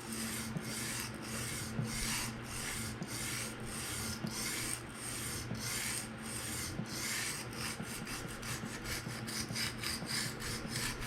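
PM60 steel knife blade stroked back and forth on a 220-grit Sharpal diamond sharpening stone: a steady run of gritty scraping strokes, about two a second, quickening near the end. The steel is being ground down to raise a burr along the edge.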